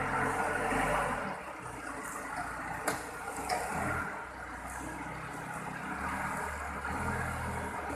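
Diesel engine of a Cat FD30 forklift running, its speed and load rising and falling as the machine is put through a power test after a transmission overhaul. There are two sharp clicks a few seconds in.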